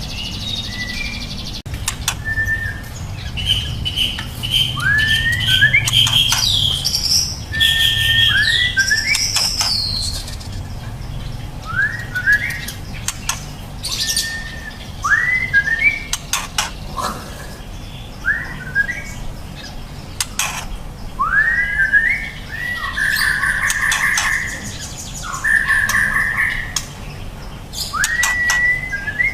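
Juvenile white-rumped shama singing: short whistled notes that sweep upward, repeated every second or two, with a quick run of higher notes early on and longer buzzy phrases later.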